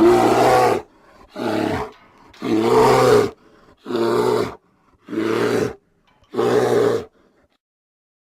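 Kodiak bear roaring six times in a row, each roar lasting under a second with short gaps between.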